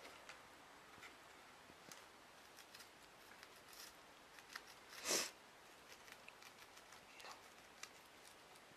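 Faint scattered clicks and scratches of a gerbil nibbling and clawing at a knitted wool sweater sleeve, with one louder brief rustle about five seconds in.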